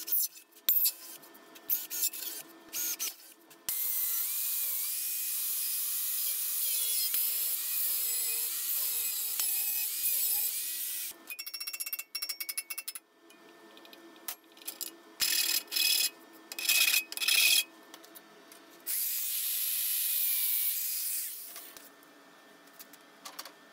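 Cordless drill boring into the sheet-steel top of a welded steel box: a steady grinding cutting noise with a faint wavering whine, in one long run and a shorter one near the end. Sharp clicks and knocks of metal being handled come in between.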